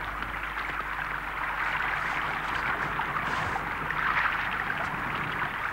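A steady rushing noise with a faint low hum underneath.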